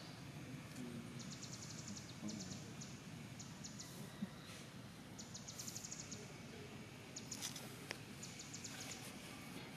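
Faint outdoor ambience with short bursts of rapid, high-pitched chirping trills repeating every second or two, plus a couple of soft ticks.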